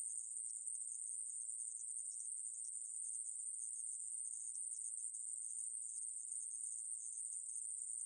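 Coneheaded katydid (aemaeburi, a Ruspolia species) singing: a continuous high-pitched buzz, held steady without a break.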